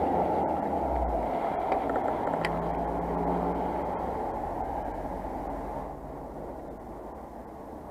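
Steady, muffled rushing noise, easing off in loudness toward the end.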